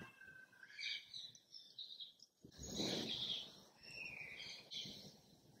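Water poured slowly from a steel tumbler onto loose soil in a clay pot, a faint trickle that comes and goes.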